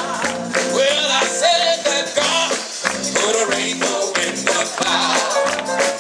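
Live gospel band playing, a dense full-band passage with percussion.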